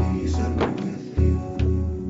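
Background film music: sustained melodic tones over deep, recurring bass notes.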